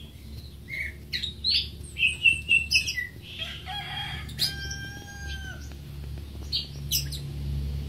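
Greater green leafbird singing: a fast, varied run of chirps, short sweeping whistles and trills, with one held, reedy note lasting about a second near the middle.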